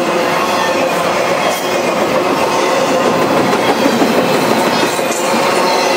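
Double-stack intermodal freight train's container well cars rolling past close by, a steady loud rumble of steel wheels on the rails.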